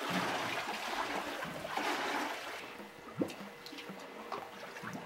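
Shallow water splashing and sloshing around a person's legs as they wade. It is fuller for the first couple of seconds, then drops to small trickles and splashes, with one sharper splash about three seconds in.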